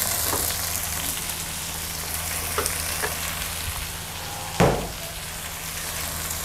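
Diced onion, garlic and chicken breast sizzling in melted butter in a nonstick pan, stirred with a wooden spatula. There are a few light scrapes and one louder knock about two-thirds of the way through.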